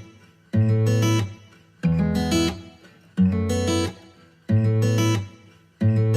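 Background music: guitar chords struck about once every second and a half, each ringing and fading before the next.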